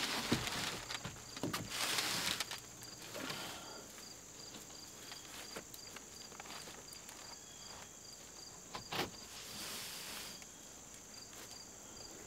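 A heavy fibre-cement (Hardie board) siding sheet being shuffled upright and set against a wall: scraping with a few sharp knocks and footsteps, loudest in the first few seconds. Insects chirp steadily in a high, even rhythm underneath.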